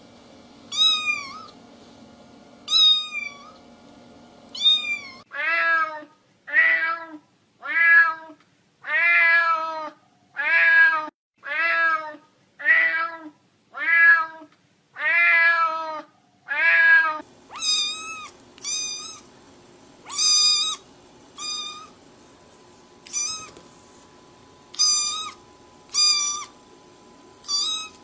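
Domestic cats meowing over and over, about one meow a second, in three runs of different voices: short high meows at first, then after about five seconds a lower, fuller meow repeated about a dozen times, then after about seventeen seconds short high meows again.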